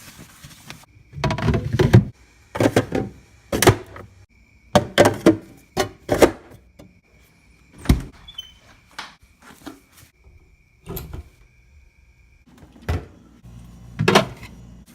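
A dozen or so irregular thuds, knocks and clatters from handling the beer fridge and its door. A faint steady high whine runs beneath them and stops near the end.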